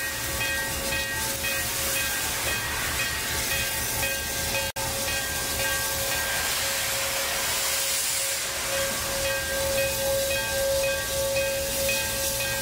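Steam locomotive hissing steadily, with a low throbbing underneath and a held tone over it. The sound drops out for an instant near the middle.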